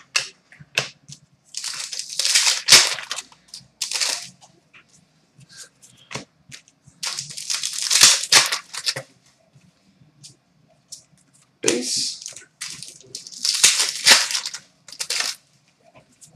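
Plastic trading-card pack wrappers being torn open and crinkled in the hands, in about five separate bursts with small clicks and rustles between them.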